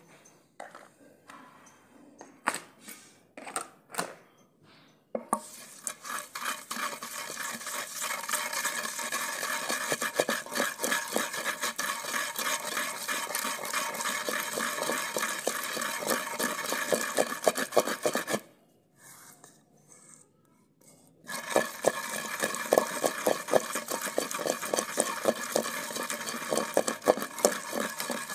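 Wooden pestle pounding and grinding a wet onion-garlic and spice paste in a clay mortar (kunda). A few separate knocks come first, then rapid strokes begin about five seconds in, stop for about three seconds, and resume.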